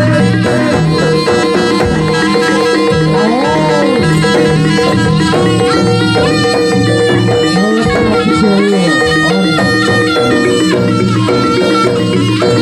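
Live Javanese jaranan (kuda lumping) gamelan music. A reedy shawm-like trumpet, the slompret, carries a wavering melody over drums and a steady ringing drone.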